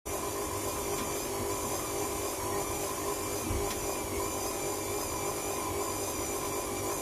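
KitchenAid Classic stand mixer running steadily, its motor whining evenly as the dough hook kneads bread dough in the steel bowl.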